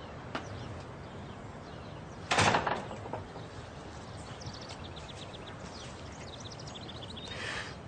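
Outdoor ambience with small birds chirping in quick high series. About two seconds in there is a brief, louder noise lasting about half a second.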